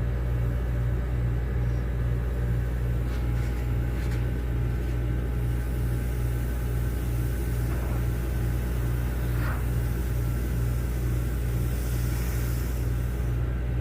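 ANEST IWATA SLP-07E-S5 oil-free scroll compressor running: a steady low hum with an even, fast pulse. A brief high hiss comes near the end.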